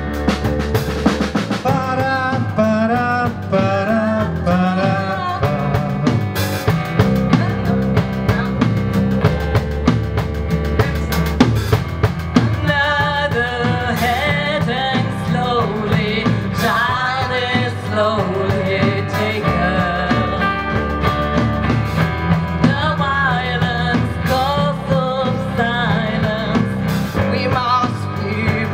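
Live band playing a song: women's voices singing into microphones over guitars, a bass guitar and a drum kit.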